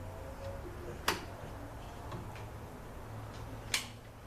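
Two sharp clicks about two and a half seconds apart, over a low steady hum.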